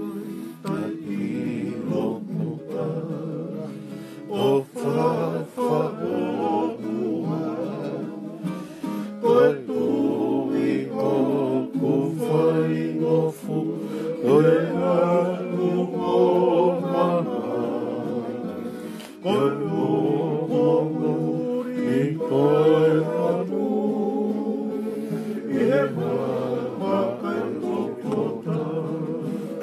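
Men singing a song together to an acoustic guitar.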